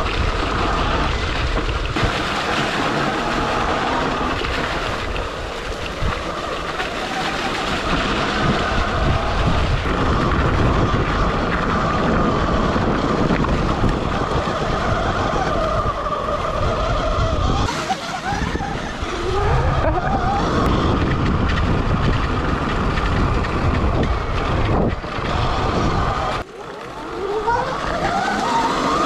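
Sur-Ron electric dirt bike being ridden off-road: its motor whine rises and falls with the throttle, over a steady rumble. The whine climbs in pitch as it accelerates a few times, most clearly in the second half.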